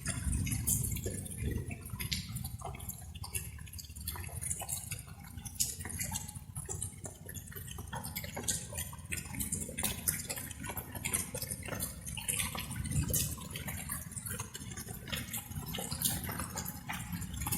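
Light rain: many irregular drops dripping and ticking, over a steady low rumble.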